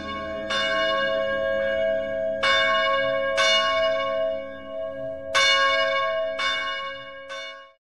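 Church bells ringing: about seven irregularly spaced strikes, roughly one a second, whose tones hang on and overlap. The ringing cuts off abruptly near the end.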